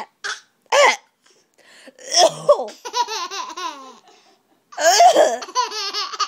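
A baby laughing hard at coughing sounds: two short bursts near the start, then two long runs of rapid, high-pitched giggles.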